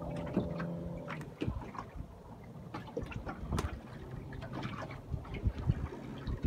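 Small waves on shallow sea water lapping and splashing close by in irregular slaps. A steady low hum runs under the first second and then stops.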